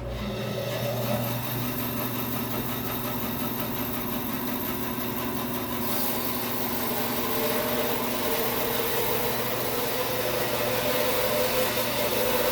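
Bandsaw running steadily with a motor hum and several steady tones; about six seconds in a brighter hiss joins.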